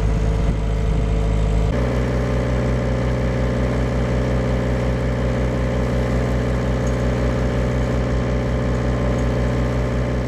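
River cruiser's inboard engine running steadily under way, a constant hum with a low regular pulse; its tone shifts abruptly under two seconds in, then holds steady.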